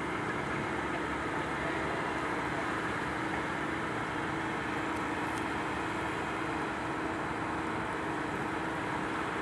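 Komatsu PC130 excavator's diesel engine running steadily, a constant hum over an even rushing noise.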